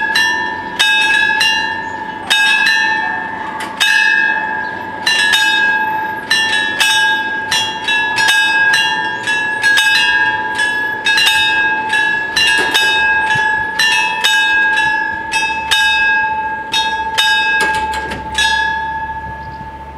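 Electric bells of an FS 64 level crossing ringing, four bells striking out of step in a fast, uneven metallic clatter while the barriers come down. The ringing stops near the end, once the barriers are down, leaving a steady high tone.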